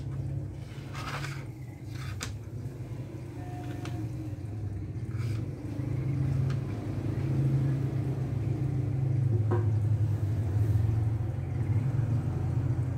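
A steady low rumble that grows louder from about halfway through, with a few light clicks as small metal-tabbed C1971 transistors are moved about on a wooden tabletop.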